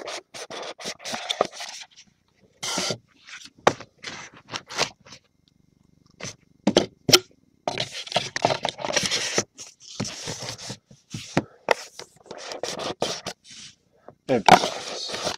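Cardboard box of baseball cards being handled and slid open on a table: on-and-off scraping and rustling of cardboard, with scattered sharp clicks and taps.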